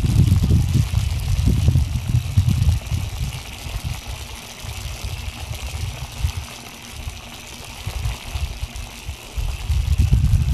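Wind buffeting the microphone in irregular low rumbles, heaviest in the first few seconds and again near the end, over a steady high hiss.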